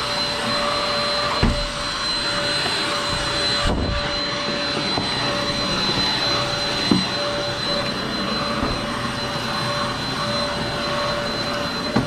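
MOOSOO XL-618A cordless vacuum in handheld mode, its brush head pushed over carpeted stair treads: a steady motor whine with a rush of suction. A few brief knocks come through it.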